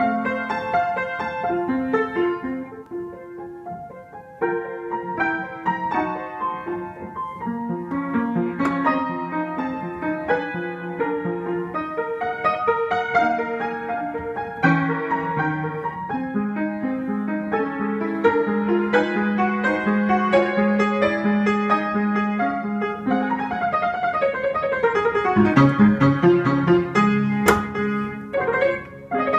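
A child playing a piece on an upright piano, a steady series of notes in both hands. Near the end, a run of notes falls down the keyboard over a couple of seconds.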